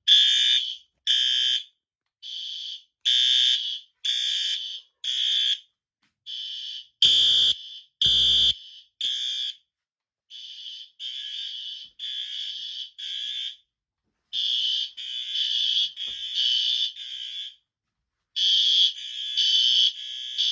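Fire alarm horns sounding the evacuation signal after a manual pull station is pulled. They give loud, high-pitched half-second blasts in groups of about three, a short pause after each group, repeating about every four seconds. The sound is really loud.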